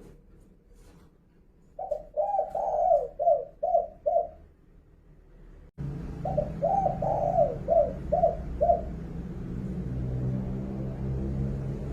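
Spotted dove (derkuku) cooing: two phrases of about seven quick coos each, one about two seconds in and one about six seconds in.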